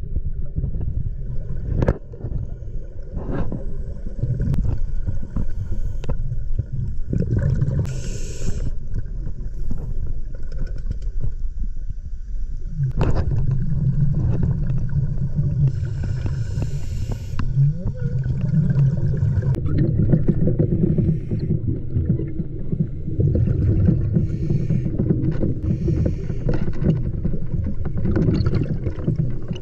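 Underwater sound picked up by a diver's camera: a steady low rumble of water and bubbles, with scuba regulator breaths hissing briefly twice, around a quarter of the way in and again about halfway, and scattered knocks and scrapes against the camera rig.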